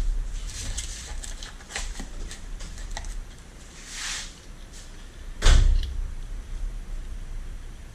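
A small power tool's motor winds down in the first second, then scattered clicks and light taps as a small steel part and hand tools are handled, with one loud knock about five and a half seconds in.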